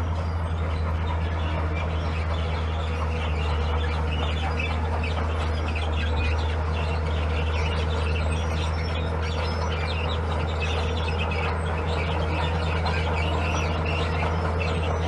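Heavy diesel engine of a construction machine running steadily with a low, even drone, with high-pitched chirps flickering over it.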